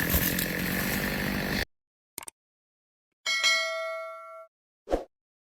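A chainsaw running, cut off abruptly about a second and a half in. After a short silence a single bell-like chime rings and fades over about a second, then a short plop near the end.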